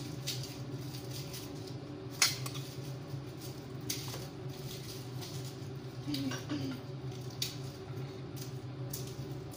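Kitchen utensil handling: a few sharp clinks and knocks of a metal spoon and a pot lid at the stove, the loudest about two seconds in, over a steady low hum.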